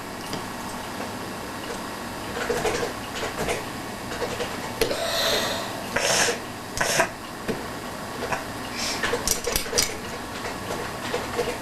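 Irregular clicks, taps and short scrapes of a long screwdriver working at a hard screw on plastic toilet-tank parts, with a brief hiss about five seconds in.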